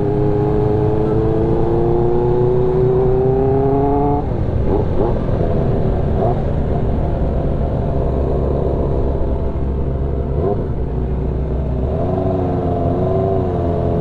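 Sport motorcycle engine with a very loud aftermarket exhaust, cruising under a steady low rumble. Its note rises steadily for about four seconds, then drops as the throttle is closed, and near the end the revs waver up and down.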